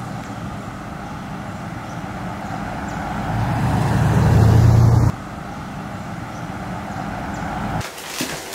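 Car engine and road noise, a steady rumble that swells louder for a couple of seconds and cuts off suddenly about five seconds in, then carries on more evenly and stops near the end.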